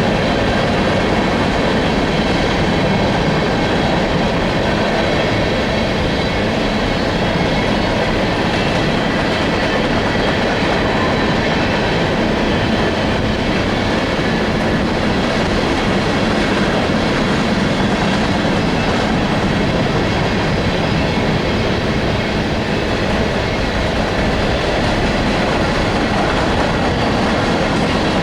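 Long freight train's cars rolling past at a steady speed: a continuous rumble with the clatter of steel wheels over the rail joints.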